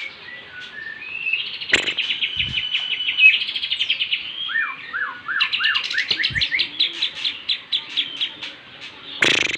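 Lovebird singing a long, rapid chattering trill of quickly repeated high notes (the 'ngekek' song), with a short run of falling notes about halfway through. A sharp knock sounds near the start and again, louder, near the end.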